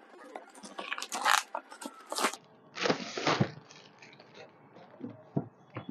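Packaging crinkling and rustling as a cardboard shoebox is pulled out and handled, in a run of irregular bursts that are loudest between one and two and a half seconds in.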